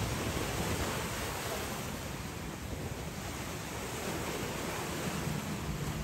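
Sea waves breaking and washing ashore in a steady rush that swells and eases, with wind rumbling on the microphone.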